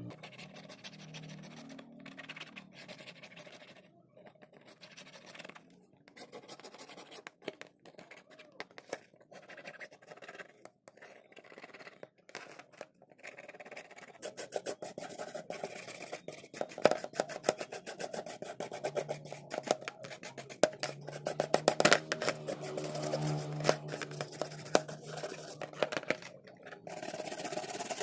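Hand tools scraping, rubbing and clicking against a smartphone's casing and parts in irregular, busy strokes that grow louder in the second half, where a low steady hum also runs for several seconds.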